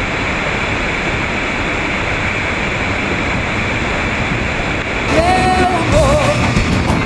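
Steady rush of a large waterfall, Iguazu Falls. About five seconds in, music with a singing voice comes in over it.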